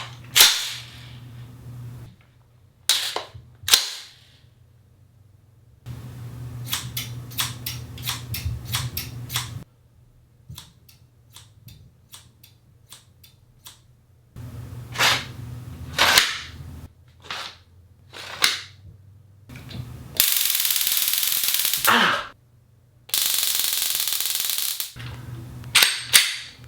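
A string of sharp cracks and clicks made with collected weapons. There are single cracks, then a fast rattle of clicks lasting about four seconds, more scattered cracks, and two loud hissing bursts of about two seconds each before a few last cracks.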